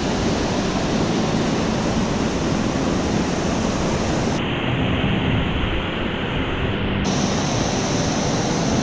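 Steady rush of a large waterfall pouring into a deep pool, an even, loud roar of water. Midway the hiss briefly loses its top end for a couple of seconds.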